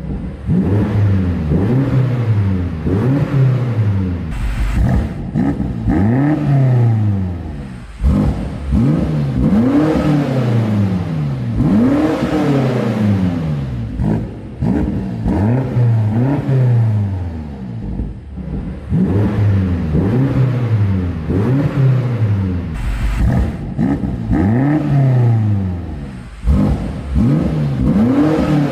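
The 4.4-litre twin-turbo V8 of a 2020 BMW X5 M Competition is revved over and over, each rev rising and falling in pitch, about one every two seconds.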